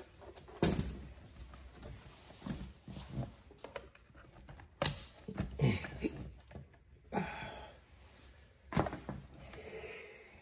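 Scattered clunks, clicks and scrapes of parts and tools being handled around a car's fuel tank, with sharp knocks about a second, five seconds and nine seconds in.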